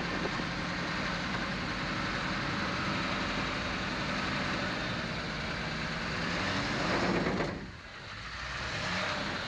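Duramax diesel engine of a 1967 Chevy C10 pulling the truck down the road, with wind and road noise in the open cab. The engine note rises about seven seconds in, drops off sharply, then builds again.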